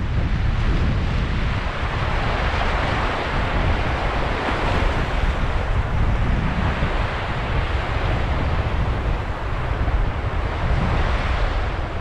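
Sea waves washing in over sand and pebbles in a continuous rush that swells a few times, with wind rumbling on the microphone.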